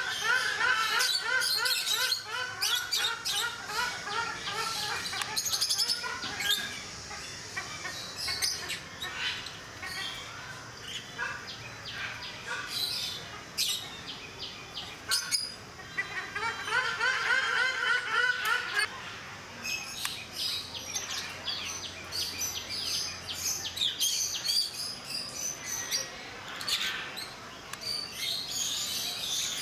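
Ruddy shelducks calling: repeated nasal, honking call notes delivered in quick runs, one long run at the start and another about sixteen seconds in, with shorter high chirps scattered among them.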